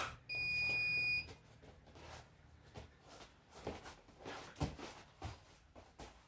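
An electronic round timer gives one long start beep, about a second long, a third of a second in. Then come scuffling feet and bodies on a wrestling mat, with a few dull thumps around four to five seconds in as one wrestler takes the other down.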